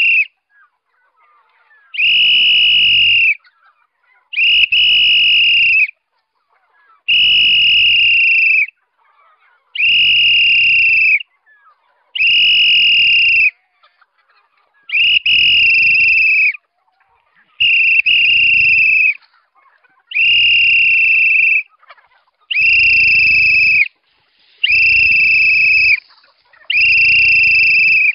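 A farmer's whistle blown in a long run of evenly spaced blasts, about a dozen, each a steady high tone lasting about a second and a half, with short gaps between. The blasts are a call that summons the chickens to be fed.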